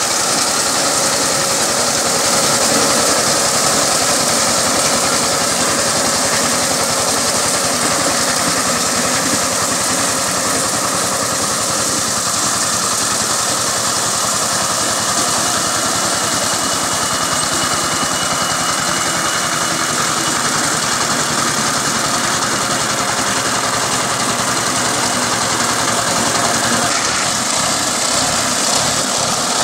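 Two-wheel power tiller's single-cylinder diesel engine running steadily under load while its rotary tiller works the ground. The engine's even beat comes through more plainly near the end.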